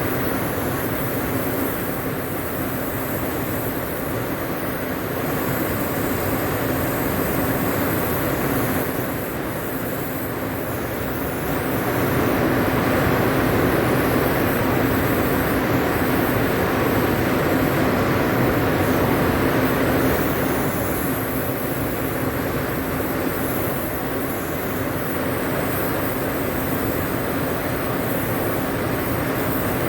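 Steady mechanical running noise with a low, even hum, which swells louder for several seconds in the middle.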